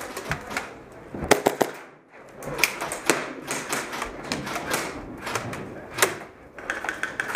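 Irregular clicks and knocks of an airsoft player's footsteps and gear in a small room, with a quick run of three sharp cracks about a second and a half in.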